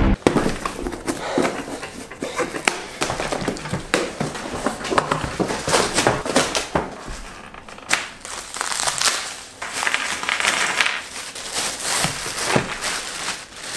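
Packaging being opened by hand: cardboard tearing and scraping with many small knocks, then thin plastic wrap crinkling loudly as it is pulled off a racket bag in the second half.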